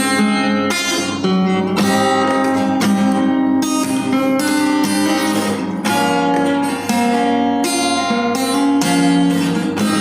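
Acoustic guitar strumming chords: the instrumental intro of a karaoke backing track.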